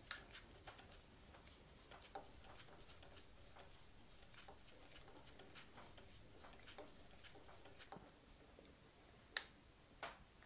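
Faint, scattered small clicks and ticks from a truss rod wrench working the truss rod nut in a guitar neck's headstock, pushing out the glued walnut access plug, with one sharper click near the end.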